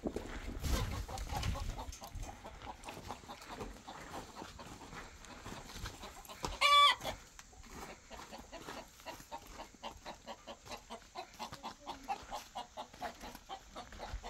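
Chickens clucking in a stream of short clucks, with one loud, short, high call about halfway through.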